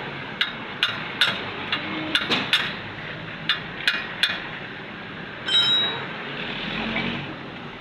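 Sharp metallic taps and clinks, about ten of them in the first four and a half seconds, then a short ringing metal clink about five and a half seconds in.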